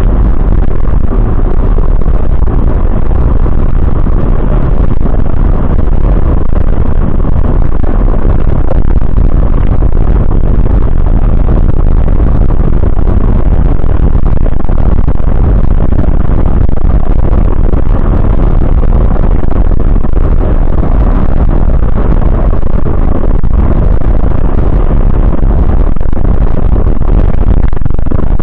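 Coach engine and road noise heard from the driver's position while under way: a loud, steady, low rumble that carries on without a break.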